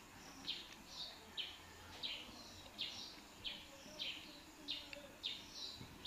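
Faint, repeated bird chirps, about two a second, each a short note falling in pitch, over low background hiss.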